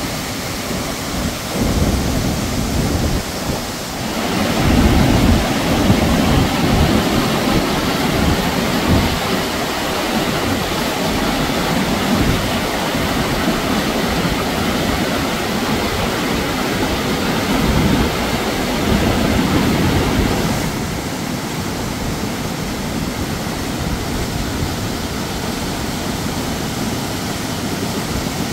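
Muddy floodwater rushing down a rocky gully: a loud, steady rush of turbulent water.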